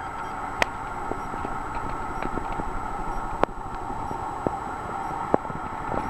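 Hunter Lexington ceiling fan running: a steady hiss with a few sharp clicks scattered through it.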